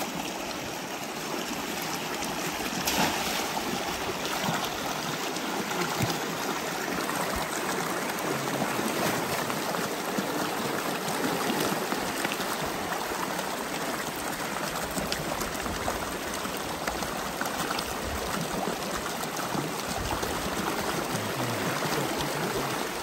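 Stream water rushing steadily, a continuous noise of running water, with a couple of faint clicks a few seconds in.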